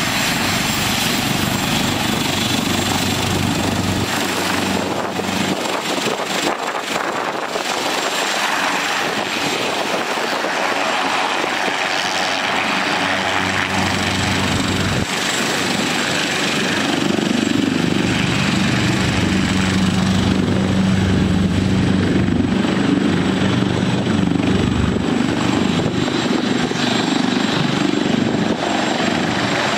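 AgustaWestland AW139 air ambulance helicopter running on the ground with its rotor turning: steady turbine whine under a low rotor beat that grows louder about halfway through.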